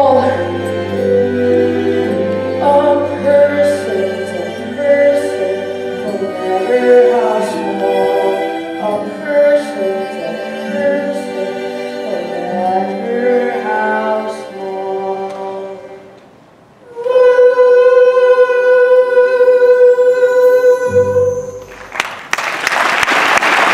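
A stage-musical song with singers and musical accompaniment, building to a long held final note. Applause breaks out near the end.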